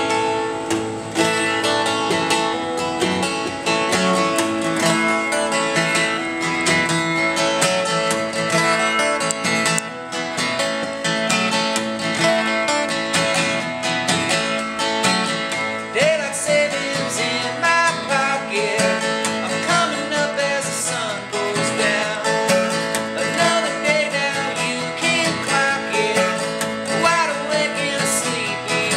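Acoustic guitar played live, strummed in a steady rhythm as a new song gets under way.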